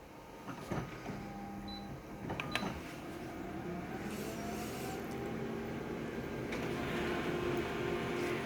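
Photocopier starting a copy: a few clicks, then its motors and scanning mechanism run with a steady mechanical hum that slowly grows louder.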